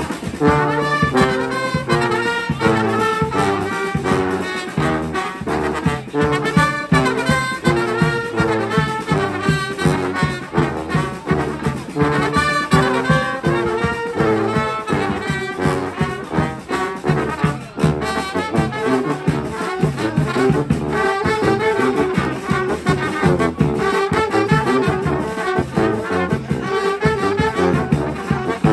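Street band playing live: brass horns, trombones and trumpets among them, in a lively ensemble tune over a steady beat.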